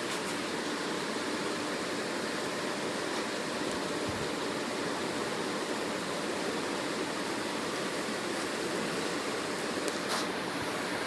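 Steady rushing background noise with no distinct events, and a brief faint click about ten seconds in.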